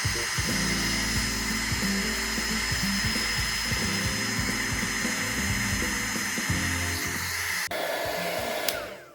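Electric heat gun blowing steadily while warming the rubber joint of an action figure to soften it, then cutting off near the end. Background music plays underneath.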